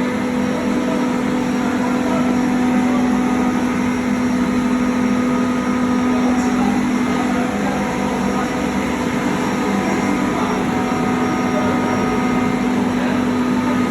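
SRM screw compressor of an industrial brine-chiller refrigeration unit running steadily: a constant machine hum with a strong low drone and several fainter steady tones above it.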